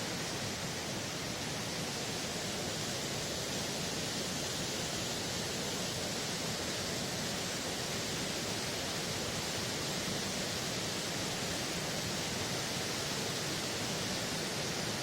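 Waterfall crashing in a steady, unbroken rush of falling water, with a hiss in the upper range.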